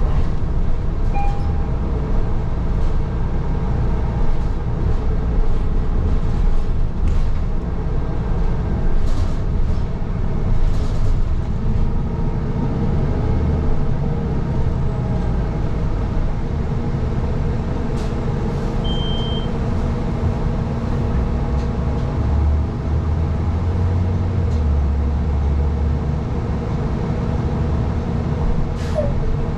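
City transit bus running, heard from inside the cabin: a steady engine and road rumble with a few clicks and rattles, and one short high beep about two-thirds of the way through.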